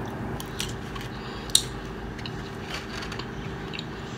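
A person biting into and chewing a mouthful of meat lover's pizza: scattered wet mouth clicks and crunches, the loudest a single sharp crunch about a second and a half in.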